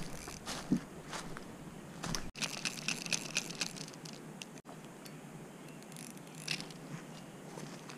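Footsteps and rustling in dry fallen leaves, with scattered small clicks and a brief flurry of them a little over two seconds in. The sound drops out for an instant twice.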